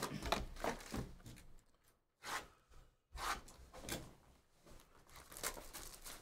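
Sealed Bowman's Best baseball card boxes being unwrapped, set down and opened by hand: a run of short, irregular scrapes, taps and tearing of cardboard and shrink wrap, with brief pauses between.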